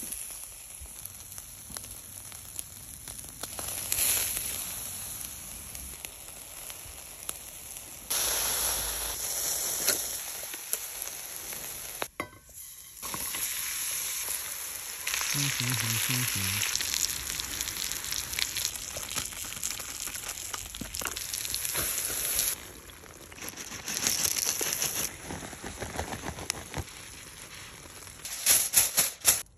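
Food sizzling over a charcoal fire, chicken on a wire grill net and butter with onions frying in a cast-iron skillet, the hiss changing level at each cut between short clips. A few sharp clicks near the end.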